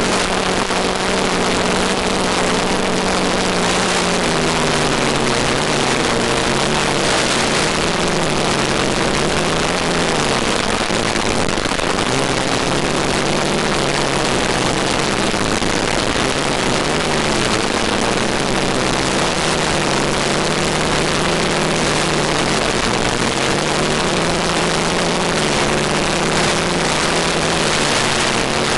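ETFD2 multicopter's electric motors and propellers droning under a strong, steady hiss, their pitch drifting slowly up and down as the throttle changes.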